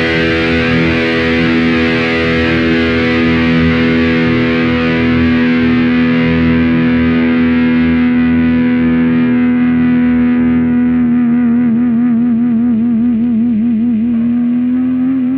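Electric guitar through distortion holding one long sustained note, its brightness slowly fading. About two-thirds of the way through, vibrato sets in and the pitch wavers.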